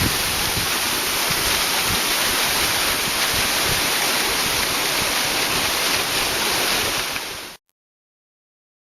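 Waterfall rushing with a steady, even roar of falling water that cuts off suddenly near the end.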